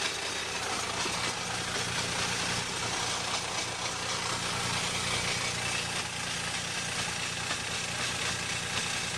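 Geo Metro engine running steadily in fifth gear with the front wheels jacked off the ground and spinning freely, a steady drone with no marked change.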